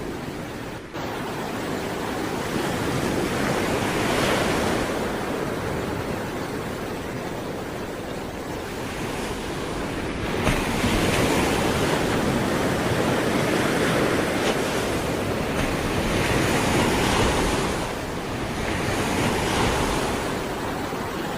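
Sea waves breaking and washing on the shore, the surf swelling and fading again several times.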